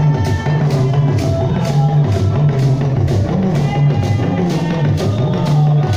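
Upbeat dance music with a steady drum beat, a strong bass line and a melody on top.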